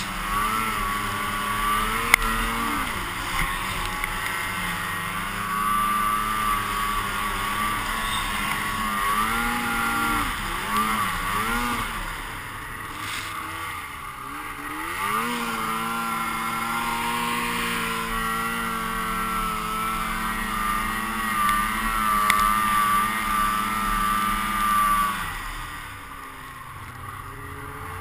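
Snowmobile engine running under throttle, its pitch rising and falling with repeated revs. About halfway through it drops low and climbs back up, holds a steady pitch for several seconds, then eases off to a lower, quieter note near the end.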